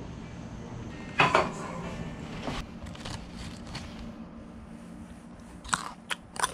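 Crunching bites into a raw baby carrot: a few sharp, quick crunches near the end. A loud handling noise comes about a second in.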